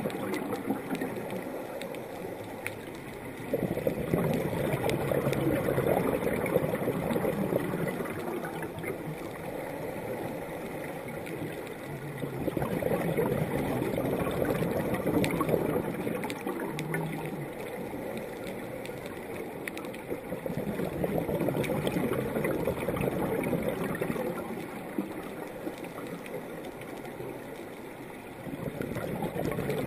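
Heard underwater, a scuba diver's exhaled bubbles gurgling in stretches of about four seconds, coming back about every eight seconds, with quieter pauses between them.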